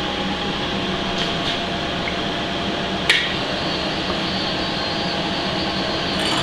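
Milling machine running steadily with a level hum and whine from its motor and spindle, the cutter working a 20-thou facing cut across a cast-iron exhaust manifold. A single sharp tick comes about three seconds in, and the cutting noise grows a little louder near the end.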